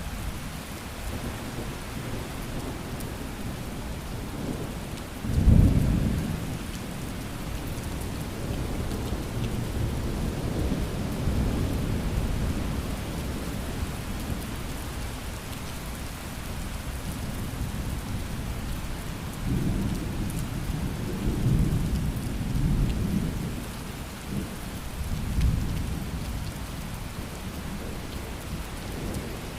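Thunderstorm: steady rain with thunder. A loud thunderclap comes about five seconds in, the loudest sound, and several lower rolls of thunder follow later, the last near the end.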